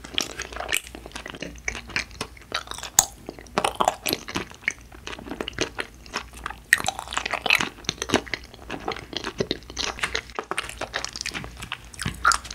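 Close-miked chewing of a Trolli galaxy jelly, a filled gummy ball: many quick, irregular wet clicks and smacks of the sticky gummy in the mouth.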